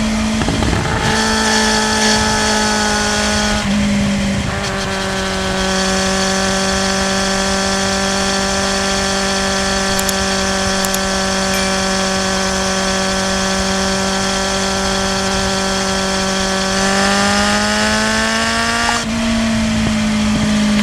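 Kawasaki Z750's inline-four engine under way, holding a steady note at constant revs for most of the stretch. The revs change briefly in the first few seconds, climb near the end, break off once, then fall away.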